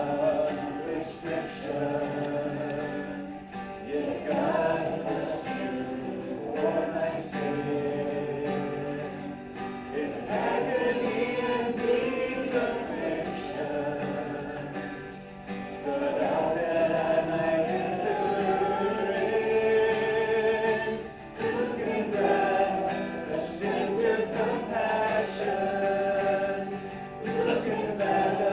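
A congregation singing a worship song together in unison, phrase after phrase without a break.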